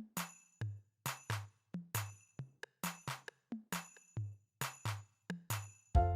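Background music: a drum-machine beat of evenly spaced kick-and-click hits, about two a second, with pitched notes coming in near the end.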